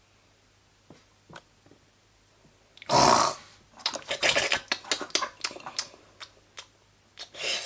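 A person making fast gobbling, munching mouth noises for a toy pig figure eating a pancake: one loud breathy gulp about three seconds in, then a quick irregular string of short chomping sounds. A few light taps of plastic toys on the table come first.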